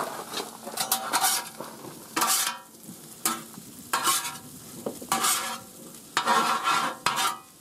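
Spatula scraping and turning diced potatoes, sausage and bacon on a propane Blackstone griddle: repeated scraping strokes at irregular intervals over the steady sizzle of the food frying.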